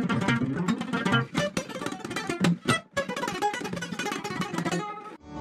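Acoustic guitar played solo, a quick run of picked notes and chords that breaks off near the end.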